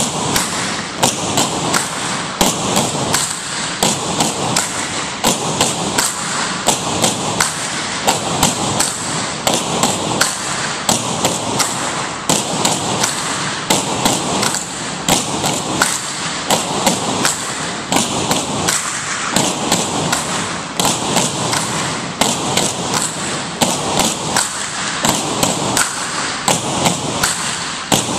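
Several pairs of tinikling poles being knocked on a wooden gym floor and clapped together, sharp knocks repeating in a fast, steady rhythm.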